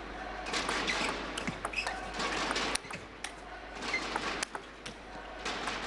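Table tennis rally: the ball clicking sharply back and forth off the rackets and the table in a quick, uneven series, over a low crowd murmur.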